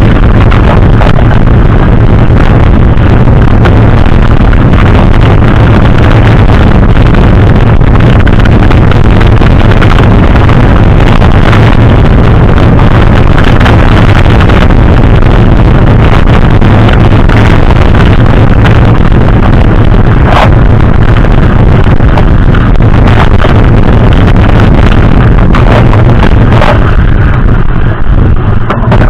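Heavy wind buffeting on the microphone, loud and steady, with a constant low rumble underneath. It fades away near the end.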